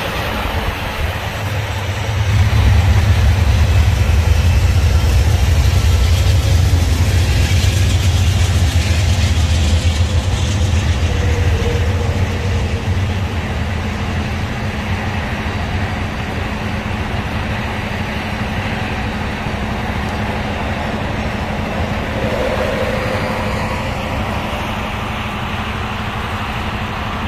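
Amtrak passenger train passing: a heavy low rumble builds about two seconds in and is loudest for the next several seconds. It then settles into the steady rolling of the bilevel Superliner cars, a little quieter toward the end.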